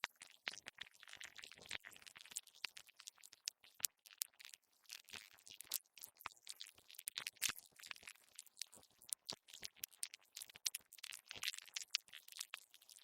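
Earthworm sound effect: a steady stream of quick, irregular clicks and crackles, mostly high-pitched, with short hissy swells every second or two.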